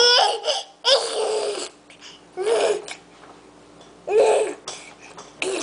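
Baby babbling in short, high-pitched bursts of vocalising, about five of them over a few seconds.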